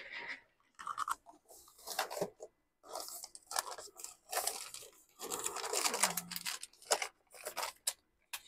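Intermittent crinkling and rustling, as of small plastic parts bags being handled, with scattered small clicks: rummaging for a replacement fuse.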